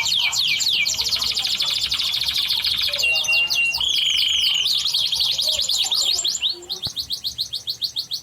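Yellow canary singing a fast, continuous song of rapid trills and repeated downward-sweeping notes, with a held whistled note about three seconds in; the song breaks up into choppy trills near the end and stops abruptly.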